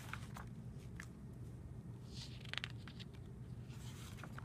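Pages of a large paperback picture book being turned by hand: a few soft paper rustles and light taps, over a low steady hum.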